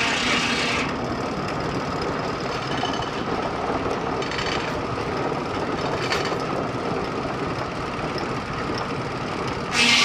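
Steam-powered sawmill running: a steady clatter of machinery and carriage. A louder, sharper sound drops away under a second in and comes back just before the end.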